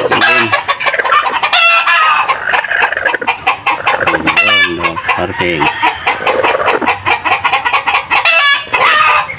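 Chickens clucking in many short, repeated calls, with a few longer drawn-out calls among them.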